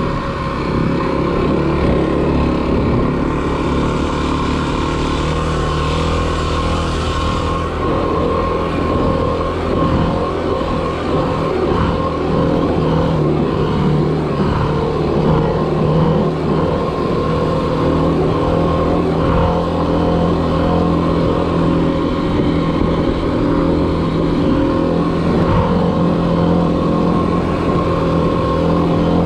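Kawasaki KLX300 dirt bike's single-cylinder four-stroke engine running steadily under way, with a band of hiss added from about three to seven seconds in.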